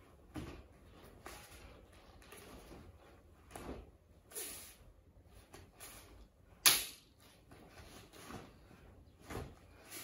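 Sharp snaps of a taekwondo uniform (dobok) cracking with fast strikes and kicks during a poomsae, about six in all, the loudest about two-thirds of the way through.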